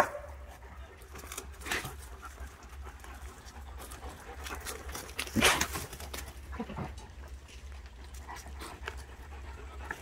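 German shepherd panting hard as it bites and tugs at a sapling, with short rustling and snapping strokes. One louder sharp sound comes about five and a half seconds in.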